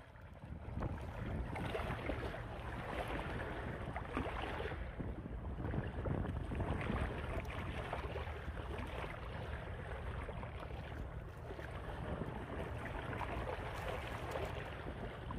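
Shallow water splashing and sloshing as hands rummage through it among stones, with wind rumbling on the microphone.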